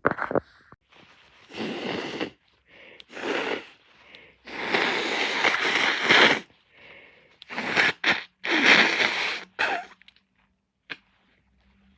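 A person with a sick, snotty nose blowing it hard: a run of wet, noisy blows, the longest about two seconds in the middle, with shorter blows between them and a small click near the end.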